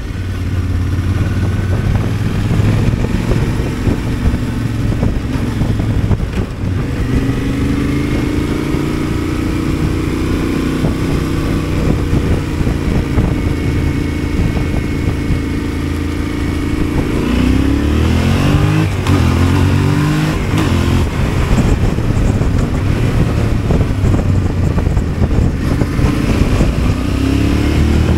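Yamaha Ténéré 700's 689 cc parallel-twin engine running steadily under way, then from about two-thirds of the way through revving up in several short rising sweeps as the bike accelerates through the gears.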